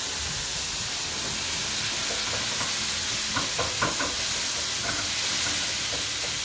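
Ground beef sizzling in a hot frying pan, a steady hiss. From about three and a half seconds in there are a few short knocks and scrapes of a spatula against the pan as the meat is broken up.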